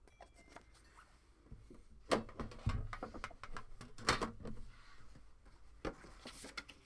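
Trading cards and their plastic and cardboard packaging being handled: scattered rustling, scraping and light clicks, with sharper knocks about two seconds and four seconds in.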